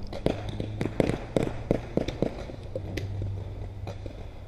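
Quick, uneven footfalls of a paintball player running over wet, muddy ground, with gear knocking at each step. They come several times a second, then thin out after about two seconds, over a steady low rumble.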